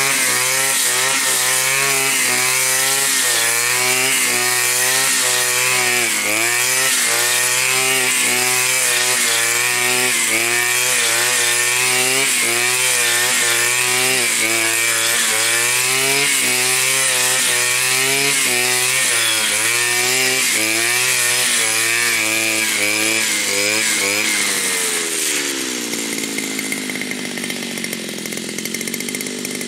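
A Blade Alpin 520 petrol brushcutter's two-stroke engine runs hard through tall, dense grass. Its note dips and recovers about once a second as the blade swings into the grass. About 25 seconds in, the revs fall away to a lower idle.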